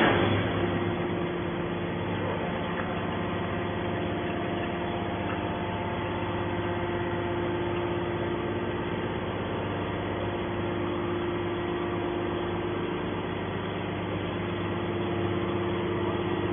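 Hydraulic scrap metal baler running: a steady machine hum with several held tones, after a single loud clank at the very start.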